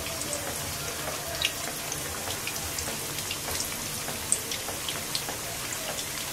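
Battered kachki fish pakoras deep-frying in hot oil: a steady sizzle with scattered small crackles and pops.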